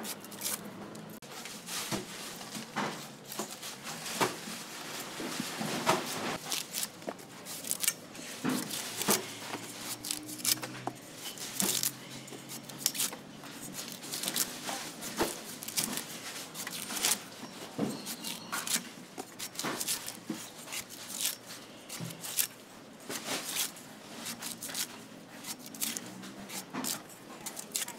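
A long knife shaving the fibrous husk off a young coconut in quick, irregular cutting strokes, each a short crisp slice or chop.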